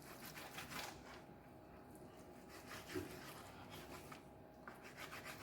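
Faint knife strokes cutting raw chicken breast into small cubes on a cutting board, in two short runs of quick strokes, one near the start and one near the end.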